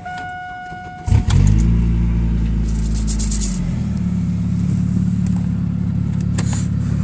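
A steady electronic warning tone cuts off about a second in as the Chevy S-10 pickup's engine starts. The engine runs fast at first, then drops about three and a half seconds in to a steady idle.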